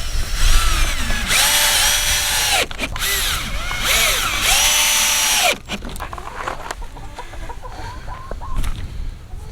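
Cordless drill driving screws into wood in two runs of about a second and a half each, the motor spinning up, holding speed and winding down each time.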